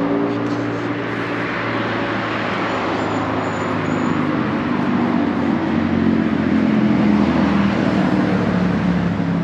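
City street traffic: cars driving past with a steady rush of tyre and engine noise. A vehicle's engine hum grows louder in the second half.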